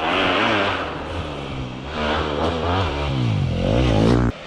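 Motocross dirt bike engine revving up and down under throttle, its pitch climbing steeply just before it cuts off abruptly near the end.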